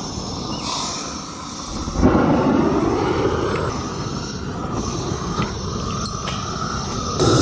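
Hose-fed gas torch hissing, then the burner under the lead-melting bathtub catches with a sudden whoomp about two seconds in and keeps running as a steady rushing gas flame. It gets louder again near the end.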